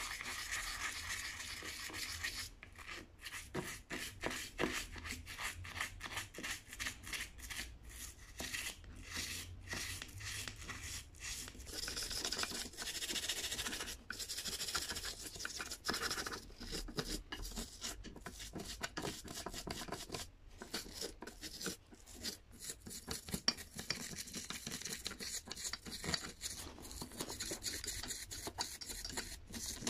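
Toothbrush bristles scrubbing the rusty cast-iron body of an old hand plane in quick back-and-forth strokes, several a second: the plane is being cleaned of rust and grime.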